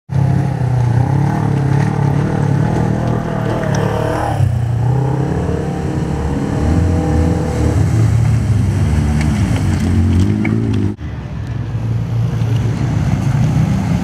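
Side-by-side UTV engines revving as the vehicles drive through a shallow river, their pitch rising and falling with the throttle, with water splashing around the wheels. The sound breaks off abruptly about three quarters of the way through and picks up again on another vehicle.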